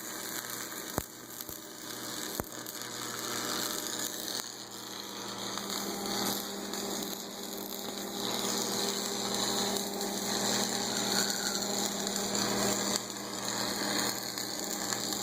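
Stick-welding arc crackling and hissing steadily while an electrode is run to fill a hole in metal, with two sharp clicks in the first few seconds.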